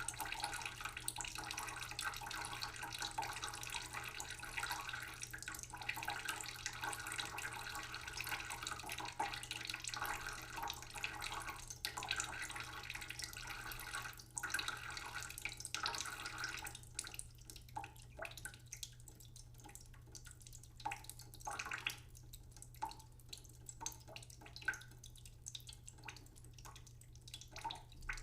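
Water running from a tap into a sink as a steady splashing stream. A little over halfway through it thins out into scattered drips and small splashes.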